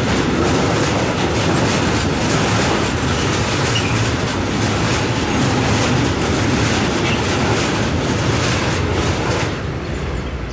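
Freight train wagons rolling across a steel railway bridge, the wheels giving a dense, rapid clatter. The noise falls away near the end as the last wagon clears the bridge.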